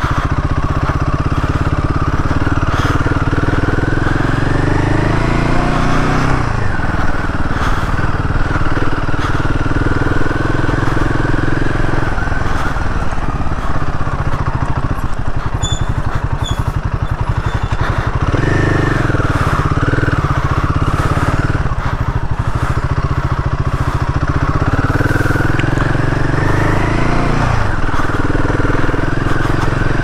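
Royal Enfield Himalayan 450's single-cylinder engine pulling under load on a trail ride. The revs climb and then drop sharply three times.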